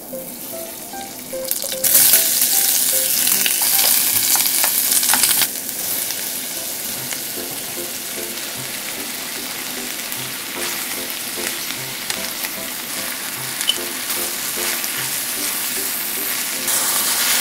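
Sausage, onion and mushrooms frying in butter in a small hammered stainless steel saucepan, stirred with a wooden spatula. The sizzle is loudest for a few seconds shortly after the start, then settles to a steady sizzle, and flour is stirred in near the end.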